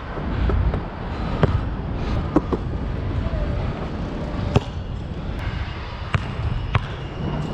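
Nike True Grip basketball bouncing, about six sharp separate bounces spaced irregularly, over a low steady background rumble.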